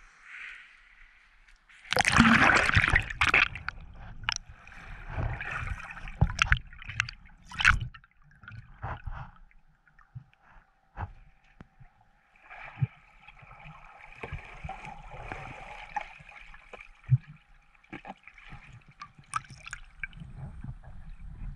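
A loud rush of water and bubbles about two seconds in as the camera goes under the surface, then muffled underwater gurgling and bubbling with scattered sharp knocks and clicks.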